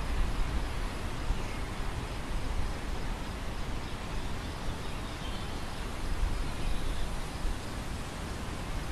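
Wind over an open grain field: a steady hiss with an uneven low rumble of gusts buffeting the microphone.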